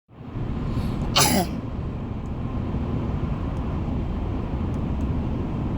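A single short, sharp cough about a second in, over a steady low rumble.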